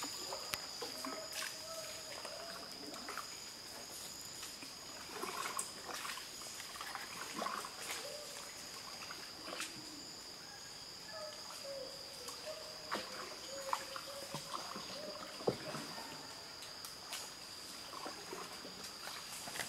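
Water splashing and trickling around a small wooden boat, with scattered light knocks, over a steady high-pitched insect drone.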